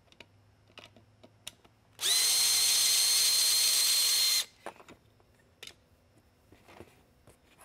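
Cordless drill-driver running at one steady speed for about two and a half seconds, starting about two seconds in, as it backs a Phillips head screw out of an LED beacon's dome. Faint clicks and handling knocks come before and after it.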